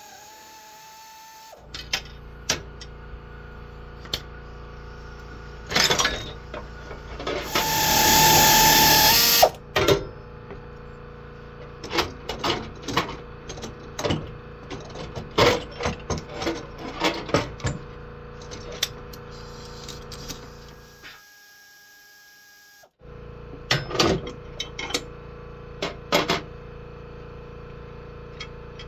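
Metal hand tools clicking and clinking on the ATV's steel frame and electric-drive parts, over a steady low hum. About eight seconds in there is a loud burst of noise lasting about two seconds.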